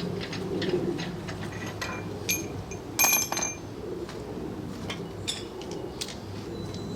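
Small metal parts and tools clicking and clinking while brake pads and pins are refitted to a brake caliper, with one louder ringing clink about three seconds in, over a steady low hum.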